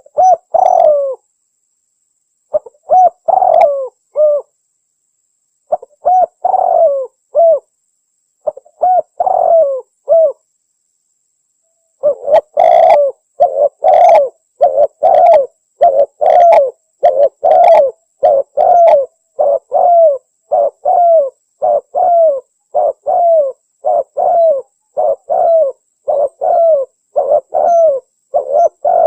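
Spotted dove (tekukur) cooing in the Javanese anggunan style. Short phrases of coos with pauses between them for the first dozen seconds, then a steady run of coos, about three every two seconds.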